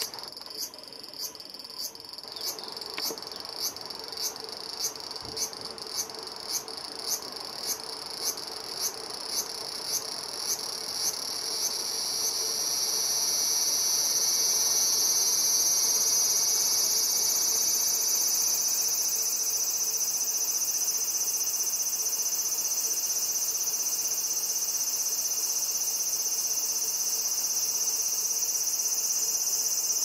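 Male large brown cicada (Graptopsaltria nigrofuscata) singing. It first gives short pulsed calls about twice a second, then about twelve seconds in the pulses run together into a steady, loud, continuous buzz. This is the male's full calling song to attract a female.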